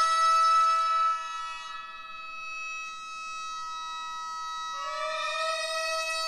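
Gagaku shō mouth organs holding a sustained many-voiced chord. It is loud for about the first second, then softer as some tones drop away, and about five seconds in the chord shifts and swells again.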